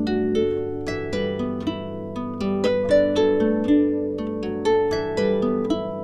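Instrumental background music of plucked strings playing a gentle melody. Notes start sharply and ring away, several overlapping at a time.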